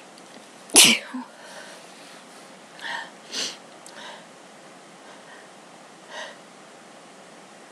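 A person sneezes once, loudly, about a second in, then makes a few shorter, quieter sounds. The sneezing is put down to an allergy to a Christmas tree.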